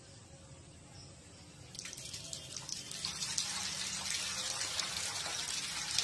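Water running and splashing: faint at first, then a steady rush from about two seconds in.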